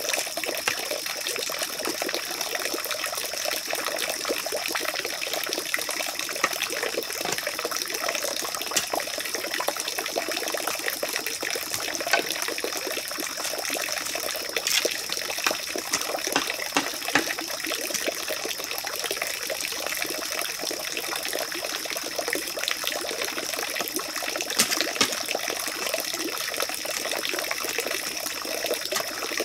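Steady rushing of running water, with a thin, steady high tone over it and scattered light knocks and scrapes.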